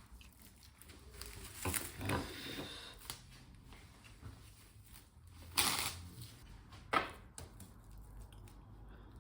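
Faint handling noise as a bamboo sushi mat is wrapped in plastic cling film: a few short rustles and crinkles, with the longest a little under 2 s in and two sharper ones near 6 and 7 seconds.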